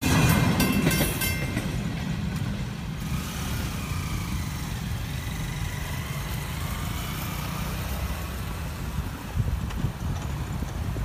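Steady low rumble of road traffic, starting abruptly, with a motorcycle engine passing partway through.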